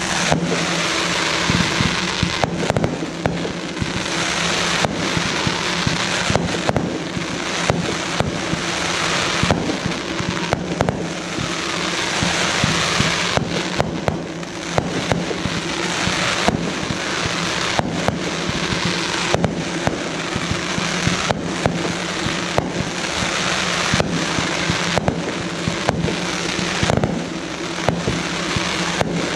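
Aerial fireworks firing in quick succession: a continuous hiss and crackle of launches and bursts, broken by many sharp pops, over a steady low hum.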